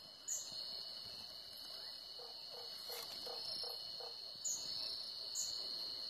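Night insects with a steady high-pitched trill. Three short, sharp higher chirps come near the start and twice near the end, and a quick run of about six low notes falls in the middle.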